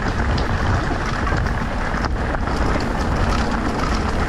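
Wind rushing over the microphone of a rider on the move: a steady, loud rushing noise with a heavy low rumble, and a brief knock about two seconds in.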